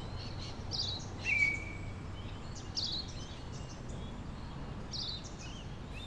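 Birds chirping in bushland: scattered short, high chirps over a faint steady background, with one clearer, longer whistled note about a second in.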